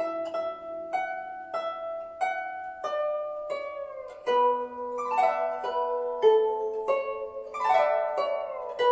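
Guzheng played solo: single plucked notes about every two-thirds of a second, some bent in pitch after the pluck, with quick rolled runs of several notes about five seconds in and near the end.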